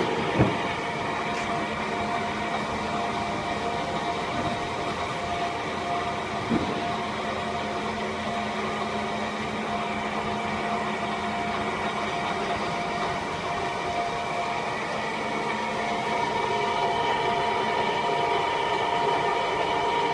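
Centre-pivot irrigation wheel gearbox with a 50:1 reduction running under test, driven through a shaft by an electric drive motor: a steady mechanical hum with several constant whining tones. A low hum comes in for a few seconds about a third of the way in, and there are single knocks near the start and about six seconds in.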